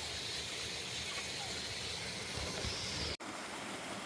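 Waterfall pouring steadily, a continuous rush of water. The sound cuts out for an instant about three seconds in.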